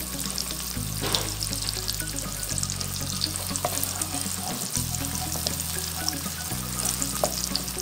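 Diced onion sizzling in butter in a pan as it is stirred with a wooden spoon, with steady crackling. Background music with a low bass line changing note every couple of seconds plays under it.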